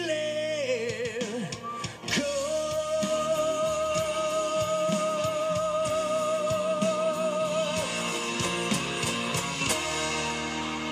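Male rock singer singing live over his own strummed acoustic guitar, holding one long note with vibrato for about five seconds.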